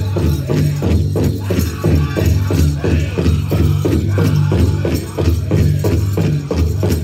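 Powwow drum group performing: a large drum struck in a steady beat, about three beats a second, under the singers' voices.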